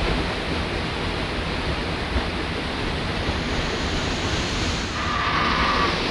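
Waterfall of a torrent running in spate after heavy rain, pouring down a rock face close to the microphone: a loud, steady rush of falling water.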